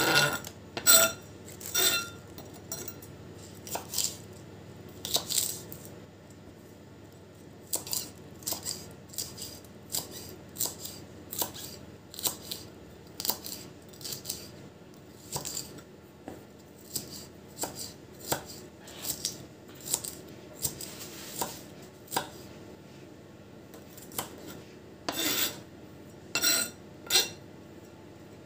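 Chef's knife chopping shredded lettuce on an end-grain wooden cutting board: crisp cuts and taps on the wood, about one to two a second, at an unhurried, uneven pace, the loudest near the start and again a few seconds before the end.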